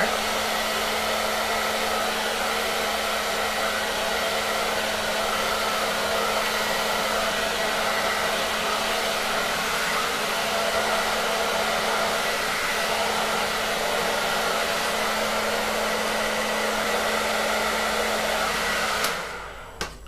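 Hand-held hair dryer with a diffuser attachment blowing steadily, a constant hum under the rush of air; it is switched off and dies away about a second before the end.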